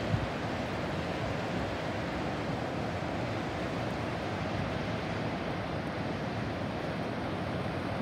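Strong wind buffeting the microphone over the steady rush of storm surf, with a brief low thump just after the start.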